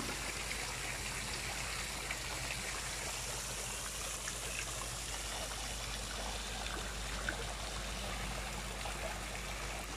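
Water from a motor-pumped artificial cement rock waterfall falling in a thin sheet and a light spray into a pool, a steady splashing trickle like rain on the water, with a faint steady low hum underneath.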